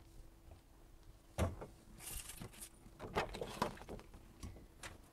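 Handling noises: a knock about a second and a half in, then rustling and a run of small knocks and clicks as things are moved about, over a faint steady hum.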